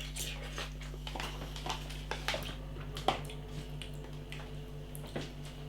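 Someone eating instant noodles from a tub: soft chewing and slurping with a few short clicks, over a steady low hum.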